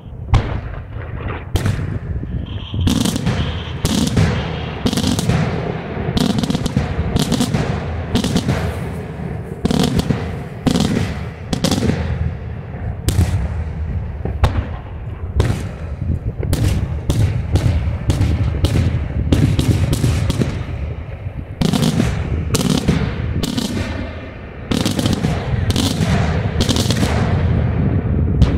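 Daytime fireworks: aerial shells bursting overhead in a rapid, dense barrage of loud bangs, with two brief lulls about three-quarters of the way through.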